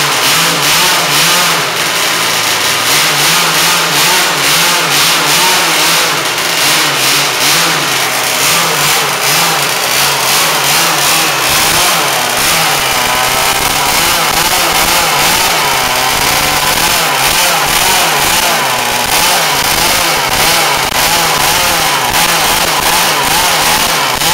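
CRRC GW26i water-cooled 26cc two-stroke gasoline engine in an RC boat running loudly on its first run, out of the water, its speed wavering up and down with light throttle.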